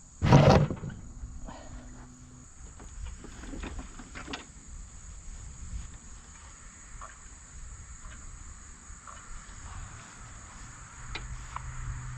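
One loud, brief rasp about half a second in, then a quiet stretch with crickets chirping faintly and a few small clicks. Near the end the Bolens push mower's Briggs & Stratton 500-series engine catches and runs steadily.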